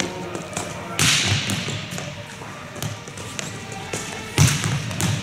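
Volleyball struck hard twice in a large echoing gym, about a second in and again near the end. The louder second hit is the player's spike off a coach's toss.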